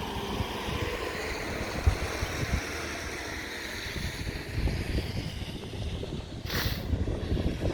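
Wind buffeting the microphone over outdoor traffic noise, with a vehicle passing that swells and fades over the first few seconds. A short sharp knock near the end.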